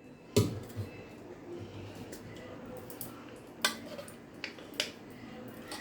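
A few scattered clicks and knocks of kitchenware being handled, the sharpest about a third of a second in, over a quiet background.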